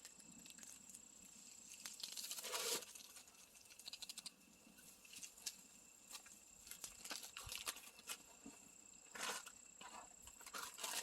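Faint crinkling and tearing of an instant-ramen packet being handled, with two short rustles among scattered light clicks.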